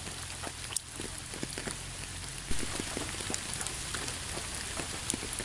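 Steady rain falling on a surface: a soft even hiss with many scattered drops ticking through it.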